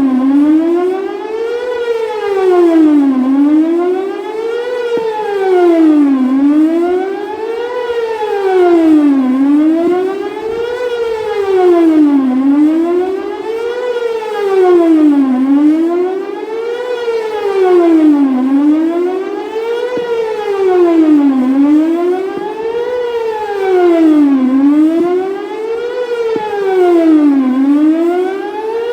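Whelen WPS 4008 electronic outdoor warning siren sounding a wail test tone, its pitch rising and falling about every two seconds. Its rotator is broken, so the siren stays pointed in one direction instead of sweeping around.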